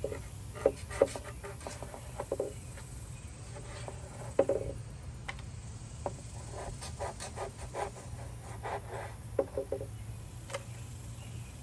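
Knife cutting stingray wing flesh on a plastic cutting board: irregular runs of small taps, clicks and scrapes, with a few sharper knocks about a second in and again about four and a half seconds in. A steady low hum lies underneath.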